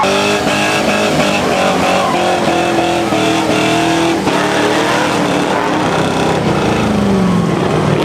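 Chevrolet Silverado pickup engines revving hard during burnouts and donuts, the revs rising and falling with the throttle over the noise of spinning tires, with an abrupt break about four seconds in.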